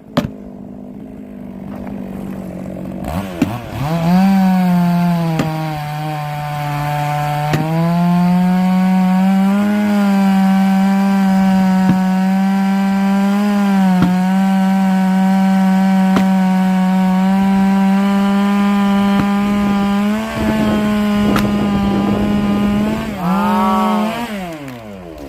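Chainsaw engine running at high revs while cutting through a large log. Its pitch rises about four seconds in, holds with small dips under load, and drops away near the end.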